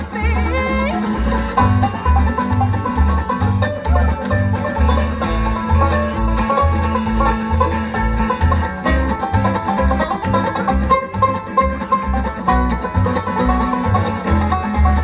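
Bluegrass string band playing live: banjo, mandolin and acoustic guitar picking over an upright bass keeping a steady beat. A sung line ends about a second in, and the rest is instrumental.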